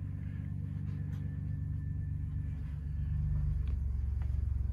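Low, steady rumble that grows louder toward the end, with a few faint ticks over it.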